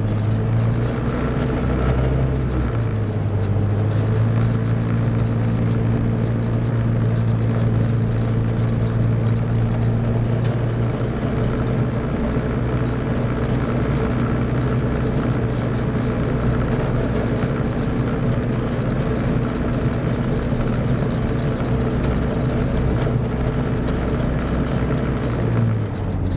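ATV engine running steadily while riding, its pitch held nearly even, with a brief dip near the end.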